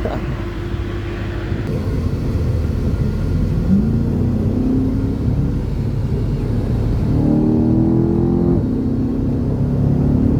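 Pickup truck engine running, revved up twice: once about four seconds in and again for a longer stretch around seven to eight seconds in.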